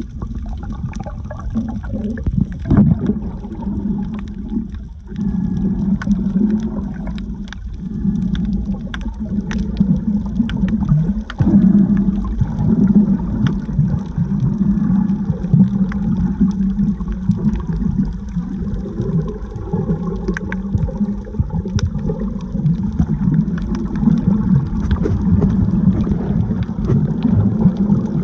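Water sloshing and gurgling, recorded with the microphone underwater while snorkeling: a steady, muffled low rumble with scattered faint clicks.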